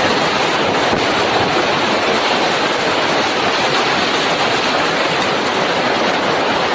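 Strong storm wind making a loud, steady rush of noise.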